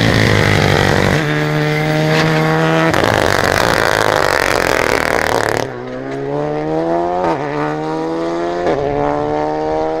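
Rally car engine at full throttle as the car passes close, with a loud rush of tyre and dirt noise. After an abrupt change about halfway through, the engine accelerates away, its pitch climbing and dropping back at two upshifts.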